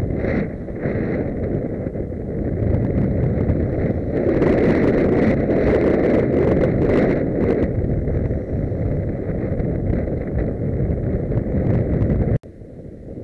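Wind rushing over the microphone of a bicycle-mounted camera while riding, with scattered clicks and knocks from the bike on the road; it is loudest in the middle. Near the end it cuts off abruptly to quieter road noise.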